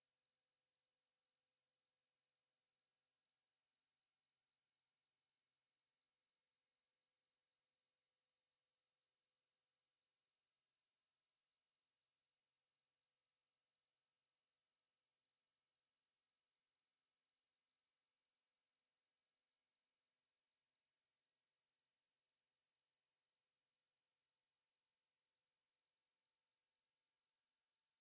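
A pure sine-wave test tone at 4736 Hz, one steady high-pitched note held unchanged at a constant level, as used to check speakers and headphones.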